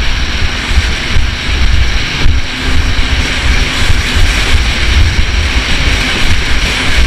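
Sea-Doo jet ski running at speed across choppy sea, its engine and water noise heard through heavy wind buffeting on the camera microphone.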